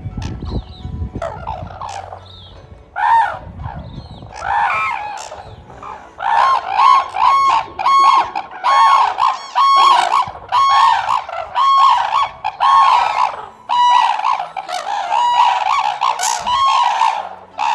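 Red-crowned cranes calling: a long series of loud, trumpeting calls, repeated about once a second, with overlapping calls from more than one bird.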